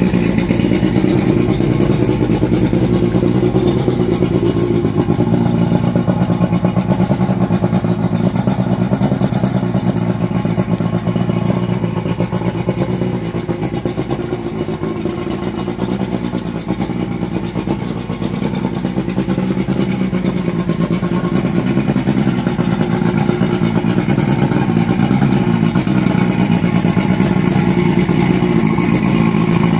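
An engine running steadily near the microphone, a little quieter for a few seconds in the middle.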